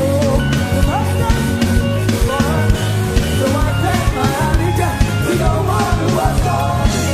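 Live gospel worship band playing an upbeat song, with drum kit beat and bass, and voices singing along.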